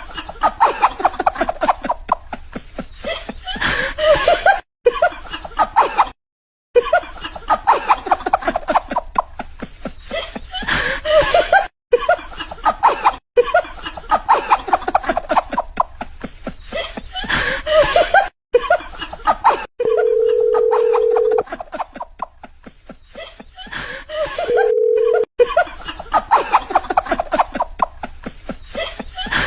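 Bursts of laughter repeating in short clips, broken by abrupt cuts to silence. Two steady beep tones sound about two-thirds of the way through, the first longer than the second.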